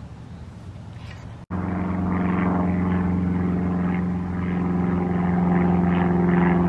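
Low, steady engine drone with an even hum, cutting in suddenly about a second and a half in after a quieter rumble.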